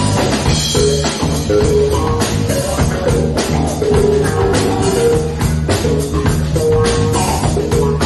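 Live rock band playing, with an electric guitar playing a melodic line of held notes over drums and bass.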